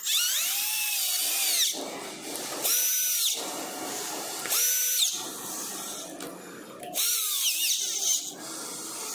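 Cordless drill-driver driving hex screws into a scooter's handlebar clamp in four short runs, its motor whine rising and falling in pitch with each run.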